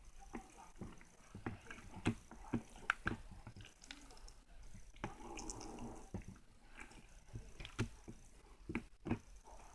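Slime being squeezed and poked by hand: irregular sticky clicks and small pops, with a longer squishing stretch about five seconds in.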